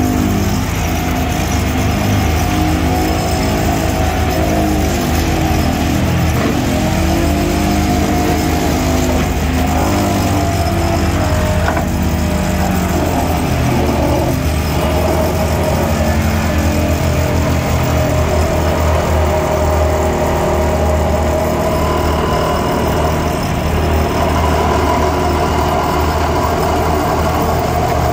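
Excavator-mounted vibratory pile hammer running on the excavator's diesel engine and hydraulics, vibrating a steel sheet pile down into the ground with a steady loud hum. The pitch wavers and glides a few seconds in, then settles.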